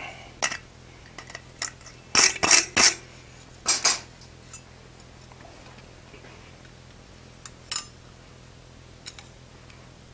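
Steel wire brush scrubbing forged iron cabinet handles on an anvil face in a few quick, scratchy strokes during the first four seconds. After that it is quiet apart from a couple of light metal clinks near the end.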